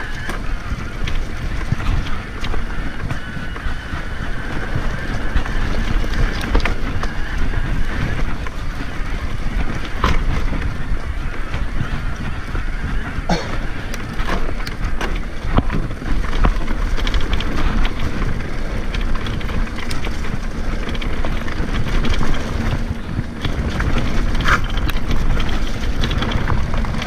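Wind buffeting the microphone of an action camera on an electric mountain bike rider, over the rumble of tyres on a dirt trail, with frequent short knocks and rattles from the bike going over rough ground.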